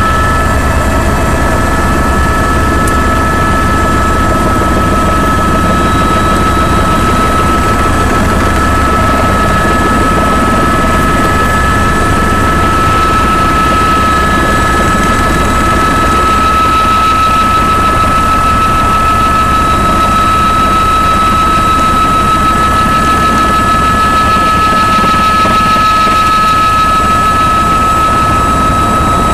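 Helicopter running steadily: a loud, continuous drone with a fast regular pulse and a steady high whine over it.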